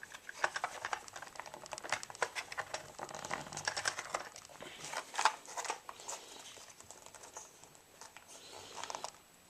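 Close handling noise: quick small clicks and crinkling as adhesive sticker pieces are peeled and pressed onto a paintball loader's plastic shell. The sounds are thickest for the first six seconds or so, then thin out.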